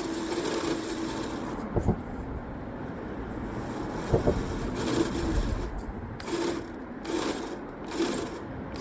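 Electric motor and drivetrain of an RC rock crawler whining in short spurts as the throttle is worked, with a couple of sharp knocks from the truck shifting about. The truck is stuck and will not drive off the obstacle.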